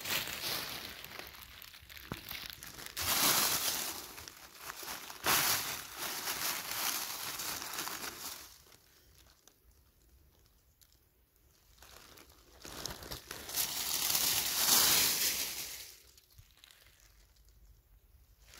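Dry fallen beech leaves crunching and rustling in bursts for the first several seconds, then a quiet spell, then another loud spell of crunching leaves before it goes quiet again.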